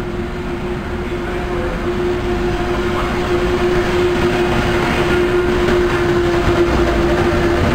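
Electric locomotive-hauled passenger train approaching and running past along the platform, getting steadily louder, with a steady humming tone over the rumble of the train.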